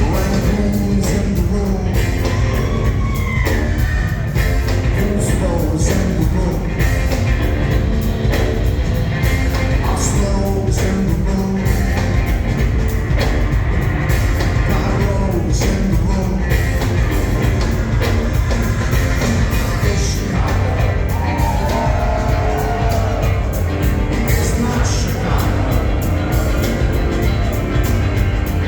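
A live rock band playing loudly with vocals over a heavy bass and drum groove.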